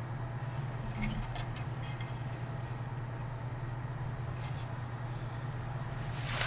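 Faint light clicks and rattles of white plastic model-kit sprues being handled, over a steady low hum.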